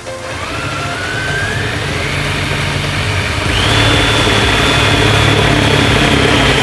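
Power drill boring through a car's sheet-metal body panel, its whine rising in pitch over the first few seconds as the motor speeds up, then held steady at a higher pitch at full speed.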